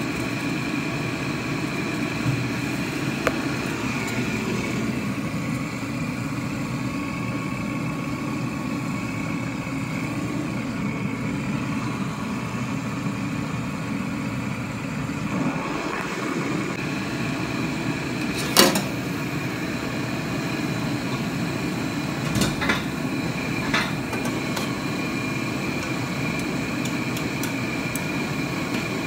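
Steady hum of gas burners on a kitchen stove, with a faint whine, and a few sharp knocks of wooden chopsticks against a steel pot, the loudest about two-thirds of the way through.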